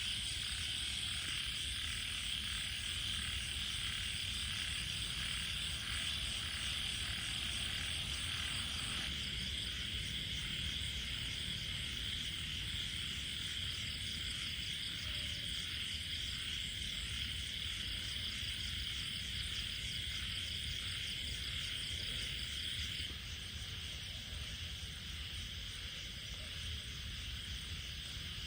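Night chorus of frogs and insects: a steady, high, pulsing trill, changing texture about nine seconds in and a little quieter near the end.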